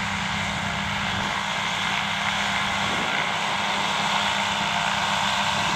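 Hurricane ultralight's small pusher engine and propeller running steadily while the aircraft taxis on grass, growing slightly louder as it comes closer.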